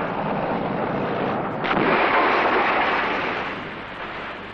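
Continuous rushing, rumbling noise with a louder crash that rises sharply about a second and a half in and dies away over the next two seconds.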